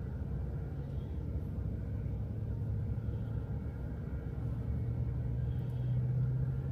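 Steady low drone of a car heard from inside the cabin, with a steady hum that grows a little louder in the last couple of seconds.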